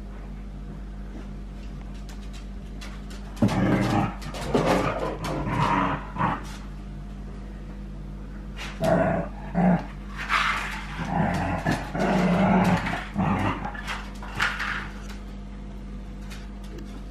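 Dogs at rough play, a grown dog and puppies growling and barking in two bouts, the first a few seconds in and a longer one from about the middle to near the end.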